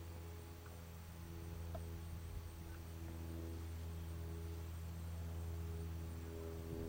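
A steady low hum with several faint steady tones above it.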